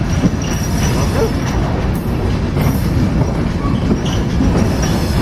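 Container flat wagons of a long freight train rolling past at slow speed: a steady low rumble of wheels on the rails, with short squeals and clicks here and there.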